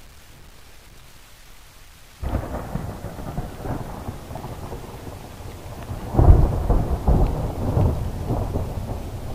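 Thunderstorm recording: a faint hiss, then about two seconds in rain and rumbling thunder set in, with the loudest peal of thunder about six seconds in.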